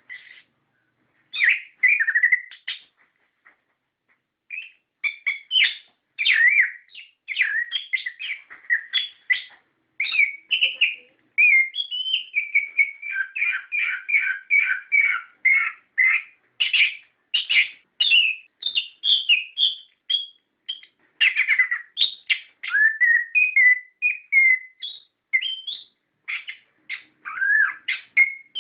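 Orange-headed thrush (anis kembang) singing a varied song of short whistled phrases. Near the middle it breaks into a quick rolling run of repeated notes, the 'ngerol' that bird keepers prize.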